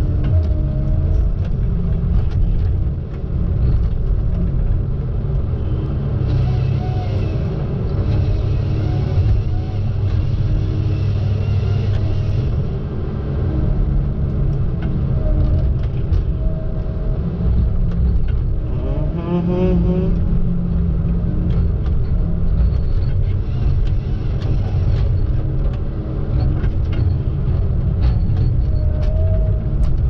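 Tigercat knuckleboom log loader working under load: its diesel engine and hydraulics running with a steady low rumble, a rising whine about two-thirds of the way through as the boom and grapple move, and a few light knocks.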